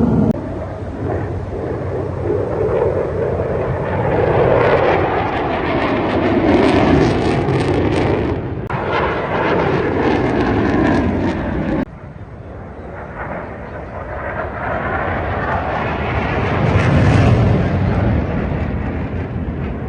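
Aircraft engines from display flights passing overhead, a loud rushing noise that swells and fades. It changes abruptly twice, about eight and twelve seconds in, where the footage cuts between passes.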